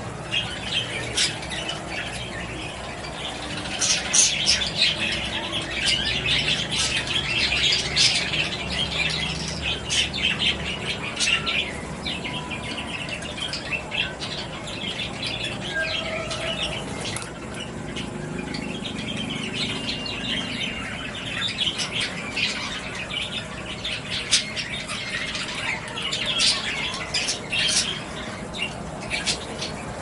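Budgerigars chattering: a dense run of quick chirps and squawks, busiest in the first third and again near the end.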